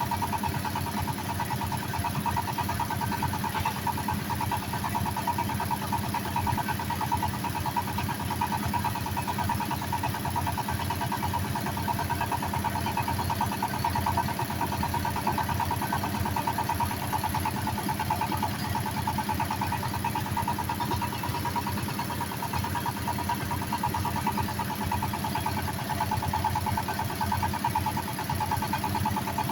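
Engine of a bored-pile drilling machine running steadily, with a fast, even pulse and a constant hum.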